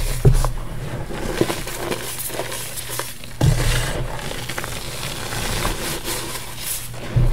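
Hands squeezing and crushing loose powdered gym chalk in a bowl: a soft, gritty crunching with small crackles, and dull low thumps as the hands press down about three and a half seconds in and again near the end.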